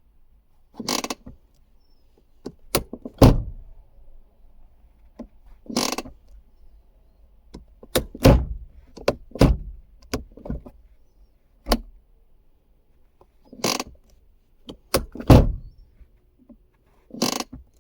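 A run of sharp plastic-and-metal clicks and heavier knocks, spaced irregularly, from a Vauxhall/Opel Mokka handbrake lever as a new metal release button is forced into place and worked.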